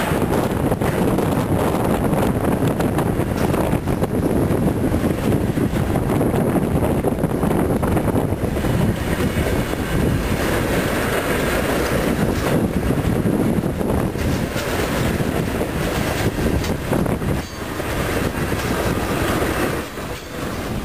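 CN freight train's covered hopper and tank cars rolling past close by: a steady, loud rumble of steel wheels on rail, with scattered clicks.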